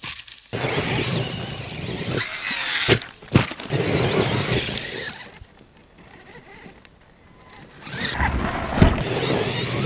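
Radio-controlled electric off-road truck driving hard on dirt: the motor whines, rising and falling in pitch, with tyres scrabbling and two sharp knocks about three seconds in. The sound drops away in the middle, then comes back louder near the end as the truck climbs, with a hard knock shortly before the end.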